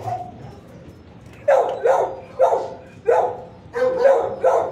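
Dog barking, a run of about seven barks beginning about a second and a half in.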